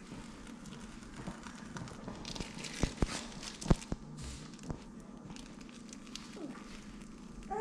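Barbecue grill fire crackling in a low steady haze, with a few sharp knocks about three to five seconds in.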